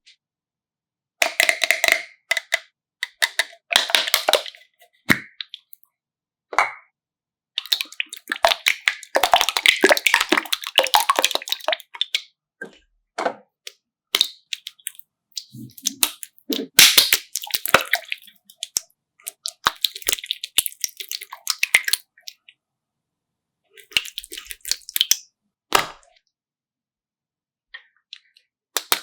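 Slime being squeezed and worked by hand, crackling with many small sharp pops in bursts of a second or several, broken by abrupt silent gaps.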